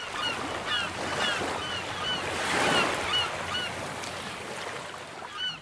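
Surf washing on a shore, swelling in the middle, with gulls giving many short, repeated calls over it: a beach sound-effect intro.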